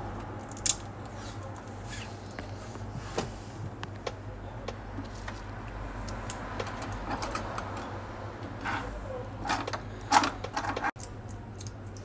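Scattered light clicks and clinks of small tools and a phone's circuit board being handled, busiest and loudest about ten seconds in, over a steady low hum.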